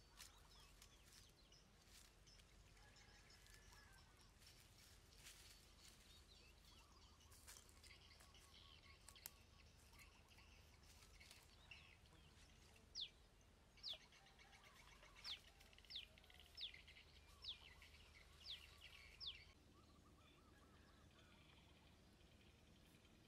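Faint outdoor ambience with a bird calling: a run of about eight short, falling whistles in the second half, with a few weaker chirps before.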